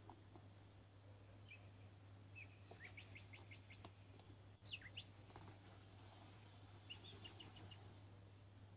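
Near silence: a faint steady hum, with a few faint high chirps in quick little runs about two and a half, five and seven seconds in.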